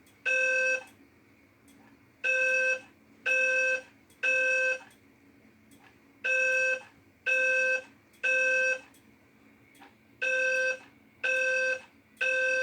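Fire alarm voice-evacuation system sounding a Temporal 3 (code-3) evacuation tone: a pitched, buzzy beep about half a second long, repeated three times a second apart, then a pause of about a second and a half. It ends one set, then sounds three full sets of three.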